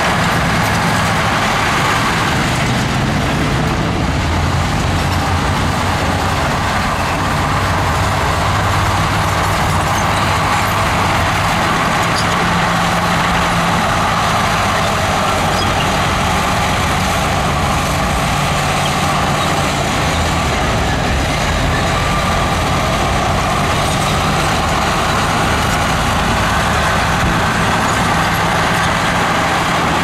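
Diesel engines of heavy earthmoving machinery, a bulldozer and dump truck, running steadily under work, the engine note shifting a few times.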